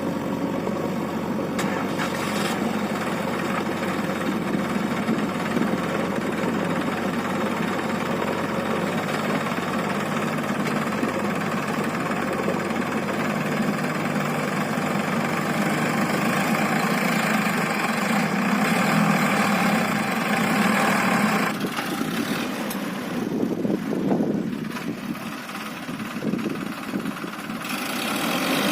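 Diesel engines of a tractor and a JCB loader running steadily during mud loading. About three-quarters of the way through the engine noise drops off somewhat, then picks up again near the end.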